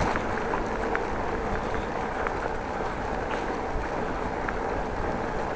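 Steady ride noise of a bicycle under way, heard through a chest-mounted action camera: tyres rolling on the paved path and air rushing past the microphone, with a few faint ticks and rattles.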